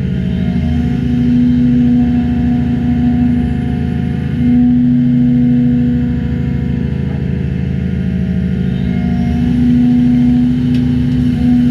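Hyundai Robex 220LC-9A excavator's diesel engine running steadily while it digs and loads. Its note rises under load three times, for a few seconds each, as the machine works.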